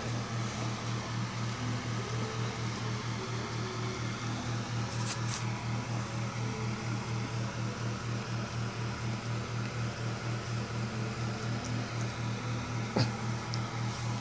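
Steady low electric hum of a motor running in the room, gently pulsing, with a couple of faint clicks and rustles from handling, about five seconds in and again near the end.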